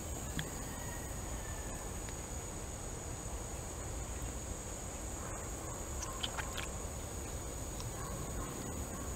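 A steady high-pitched whine or trill over a low background rumble, with a few faint short clicks about six seconds in.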